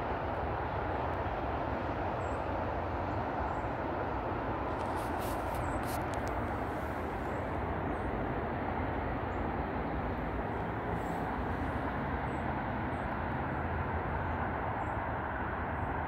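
Steady outdoor rumble and hiss that holds an even level throughout, with a few faint high chirps.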